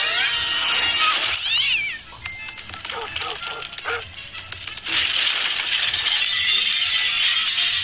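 Film soundtrack: music with animal yowls and screeches sliding up and down in pitch, then a dense, noisy stretch from about five seconds in.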